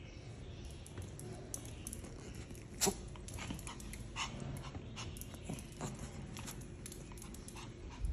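Small white Pomeranian-type dog prancing on a marble tile floor: a quick irregular patter of claw clicks on the tile, with one sharper tap about three seconds in, and a few soft whimpers.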